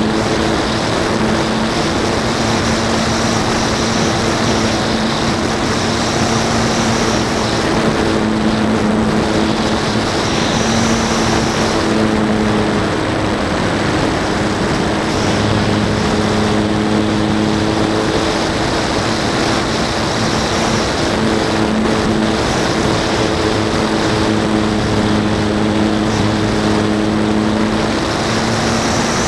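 Motor and propeller of a Calypso RC model plane running steadily in flight, heard from the plane's own onboard camera, with wind rushing over the microphone. The drone's pitch shifts slightly now and then, and a thin high whine rises and falls above it.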